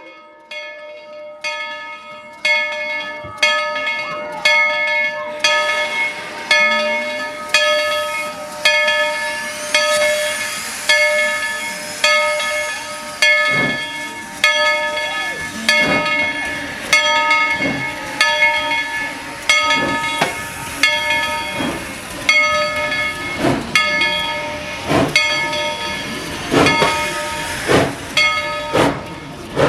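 Steam locomotive's bell ringing steadily at about one or two strikes a second, over hissing steam. It is softer for the first couple of seconds, then louder.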